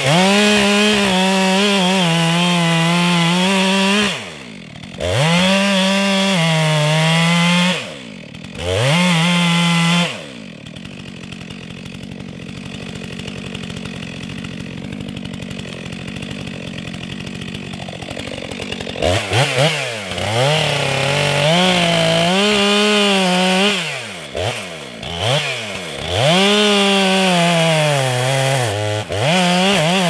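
Stihl MS 462 C-M two-stroke chainsaw running at full throttle and cutting into dead red gum, its note sagging and recovering under load. It drops off the throttle briefly twice, idles for several seconds mid-way, then is blipped a few times and opened up to cut again.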